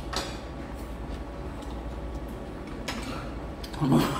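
Tableware clicking at a meal: a light click of chopsticks or a spoon against a dish just after the start and another about three seconds in, over a steady low room hum. Near the end, a voice starts up and becomes the loudest sound.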